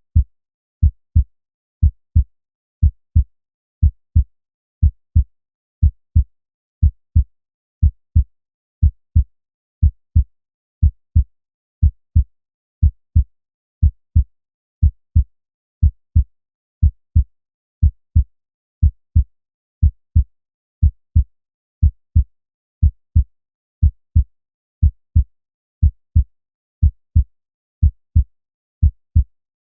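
Normal heart sounds on auscultation: a steady lub-dub, about one beat a second. The first sound (S1, closure of the mitral and tricuspid valves) is followed about a third of a second later by the second (S2, closure of the aortic and pulmonary valves). Each is a short dull low thud, with clear silence between beats and no murmur.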